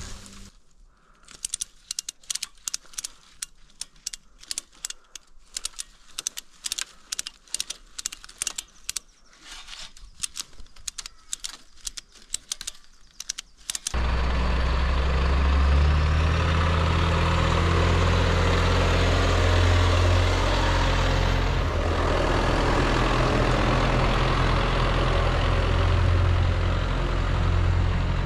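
A quick irregular run of sharp clicks and snaps, then, after an abrupt cut about halfway through, an engine running steadily with a low hum.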